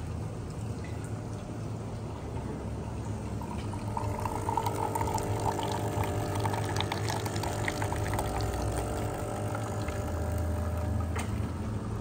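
De'Longhi Magnifica S bean-to-cup coffee machine brewing espresso, running with a steady low hum. From about four seconds in, the coffee streams from the spout into a plastic jug.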